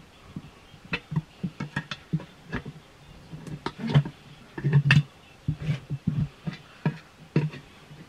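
Pry bars levering a car tyre's bead over the wheel rim by hand: a rapid, irregular run of metal clicks, clanks and knocks against the rim and rubber.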